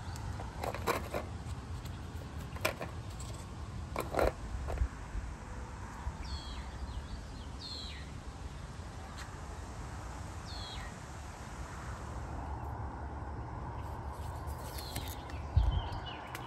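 Leaves rustling with a few sharp snaps and crackles in the first few seconds as catalpa leaves and worms are picked by hand. Then a bird's short chirps, each falling in pitch, repeat every second or two.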